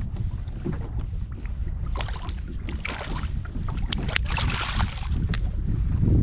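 Wind rumbling steadily on the microphone aboard a kayak on the sea, with short bursts of water splashing against the hull about three seconds in and again between four and five seconds.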